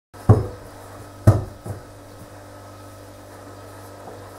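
Two dull knocks about a second apart, then a fainter third, as hands rub margarine into flour and press the dough together in a glass mixing bowl on the worktop. Behind them is a faint steady hum.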